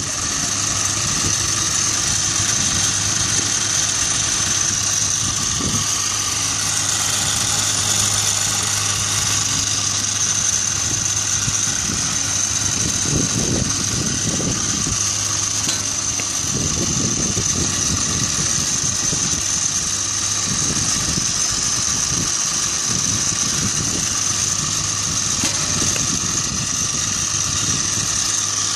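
Steady background drone: a low engine-like hum with a constant high-pitched hiss above it, and a few soft low rumbles in the middle.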